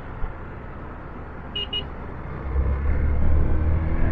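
Motorcycle riding in traffic. A horn gives two short beeps in quick succession about a second and a half in, then the engine's low note grows louder as the bike accelerates. The bike is freshly serviced and pulling strongly.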